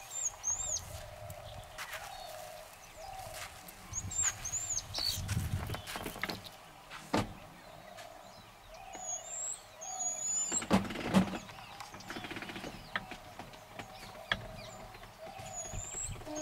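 Birds chirping over and over in short, high calls, mixed with rustling and several sharp knocks, the loudest about eleven seconds in.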